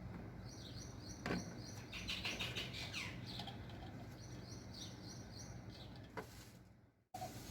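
Small birds chirping, in two runs of quick, repeated high notes. A single sharp knock comes just after a second in. The sound fades and cuts out just before the end.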